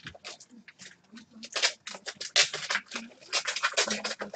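Hockey card pack wrapper crinkling and cards being slid and shuffled through the hands, in irregular bursts of papery rustling.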